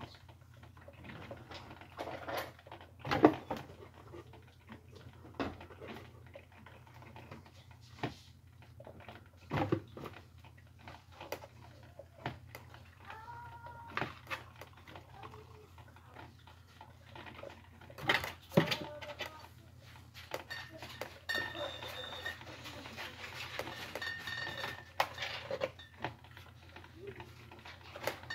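A cat pawing and scrambling about in a cardboard box: scattered knocks, scrapes and rustles of cardboard, with a brief pitched sound about halfway through.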